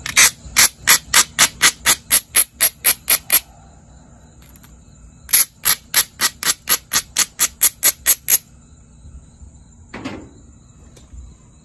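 Abrader rubbed quickly back and forth along the edge of a jasper preform, grinding the edge to prepare it for pressure flaking. It comes as two runs of sharp rasping strokes, about four a second, with a pause between them. A single softer knock comes about ten seconds in.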